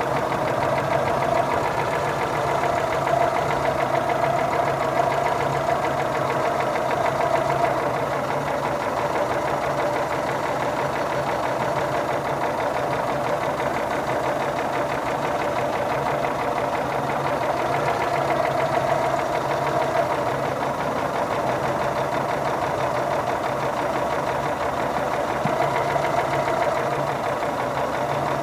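Engine idling steadily with a rapid, even knocking running through it: the engine knock that the owner is recording.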